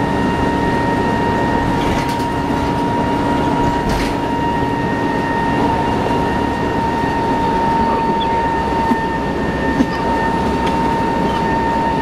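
Cabin noise of a 1994 TMC RTS transit bus underway at a steady speed: the Detroit Diesel Series 50 engine's low drone and road noise, with a steady high-pitched whine over it and a few light rattles.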